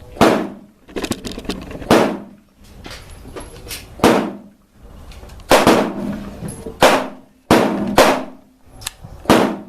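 Bersa Thunder Plus .380 semi-automatic pistol firing single shots at an uneven pace, about seven loud reports, with fainter shots in between.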